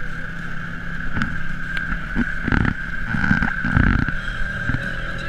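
ATV engine running under way with a steady whine, and a cluster of heavy knocks and thuds about halfway through as the machine bounces over the rough trail, heard from a camera mounted on the ATV.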